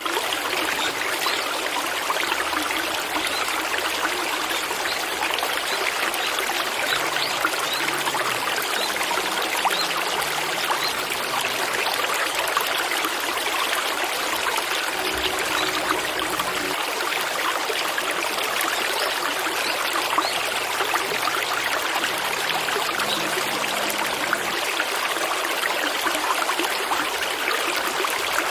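Steady, even rushing of running water, like a stream, with no breaks.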